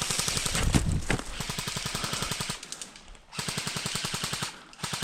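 Airsoft guns firing full-auto, a rapid rattle of many shots a second: one long burst of about two and a half seconds, a short pause, a second burst of about a second, and a brief third burst near the end.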